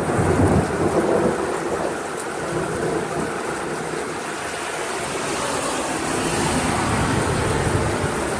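Heavy downpour with wind: a dense, steady rush of rain, with a deeper rumble in the first couple of seconds.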